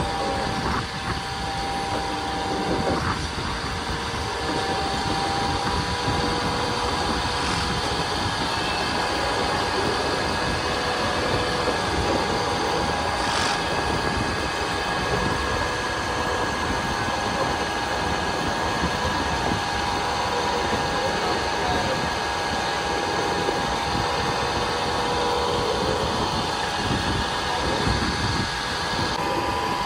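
Mumbai suburban electric local train running, a steady rumble under a constant hum of several tones.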